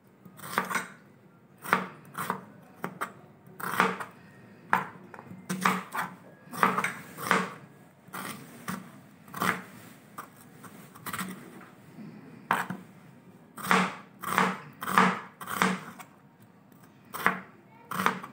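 Kitchen knife slicing a red onion on a cutting board: sharp chopping strokes at an uneven pace, about one a second.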